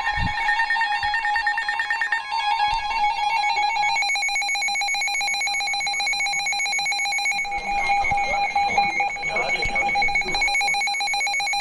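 Emergency Alert System attention signal: a steady electronic alert tone held for several seconds, heralding a severe thunderstorm warning.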